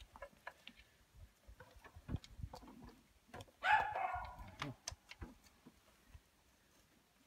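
One loud animal call, about a second long, a little past halfway through. Around it are faint clicks and knocks of metal parts being handled at a tractor's brake hub.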